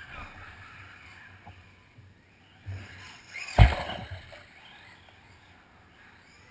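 Radio-controlled cars' motors whining, rising and falling as they run around the track. One loud thump comes about three and a half seconds in.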